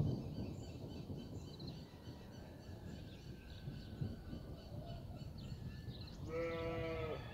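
Low rumble of thunder, loudest at the start and easing off, with birds chirping faintly. About six seconds in, an animal bleats once, briefly.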